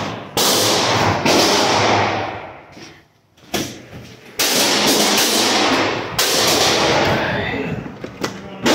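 About six gunshots at uneven intervals, each with a long echo that fades over a second or more.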